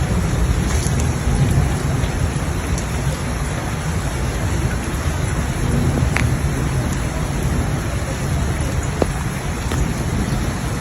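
Steady rain falling over a continuous low rumble, with a few sharp drop ticks, one about six seconds in and one about nine seconds in.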